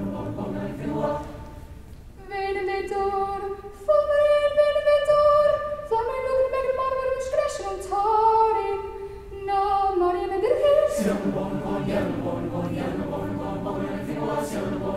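Chamber choir singing a cappella. The full choir drops out about two seconds in, leaving a single voice singing held notes alone, and the whole choir comes back in near the end.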